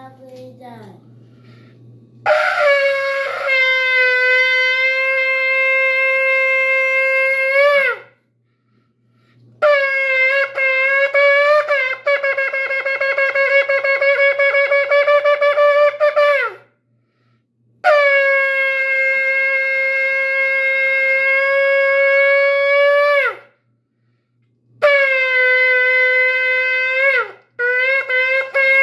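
A shofar blown in a series of blasts. First comes a long steady note of about six seconds, then a run of short, rapidly broken notes, then another long steady note, and finally shorter blasts near the end. Each blast ends with a quick downward slide in pitch.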